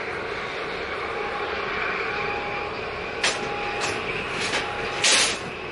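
Large Nuri-class container ship passing close by: a steady rumble of engine and water wash, broken about three seconds in by four short hissing bursts, the last the loudest and longest.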